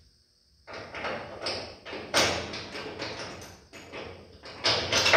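A long 7/16-inch body-mount bolt being worked in through the cab's polyurethane body mount into the frame: irregular scraping and rubbing of metal, with sharper knocks about two seconds in and again near the end.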